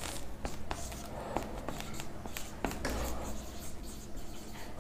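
Marker writing on a whiteboard: a string of short, irregular squeaks and scratches as the letters of a word are drawn.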